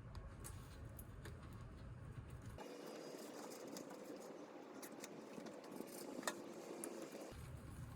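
Faint scattered clicks and light taps over low steady background noise, with one sharper click about six seconds in.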